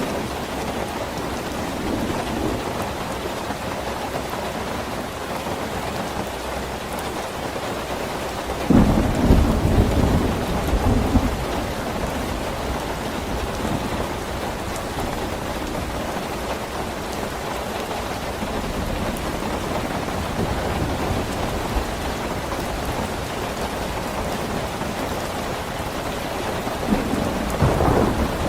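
Steady rain falling, with thunder rumbling loudly about eight seconds in for some three seconds and again near the end.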